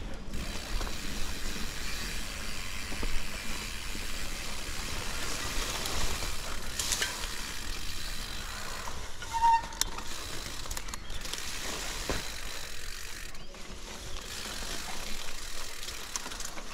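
Mountain bike riding an overgrown singletrack: a steady swish of tall grass and leaves brushing against the bike and rider, over the rattle and ratcheting tick of the bike itself. A short squeak is heard about halfway through.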